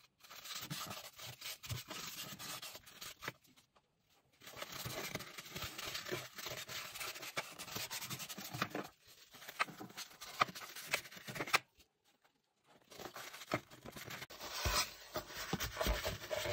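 Dry paper napkin rubbing and scraping over the bottom of a Jack H2 industrial sewing machine's oil pan, wiping out the last of the drained oil. The rubbing goes in irregular strokes and breaks off twice for about a second.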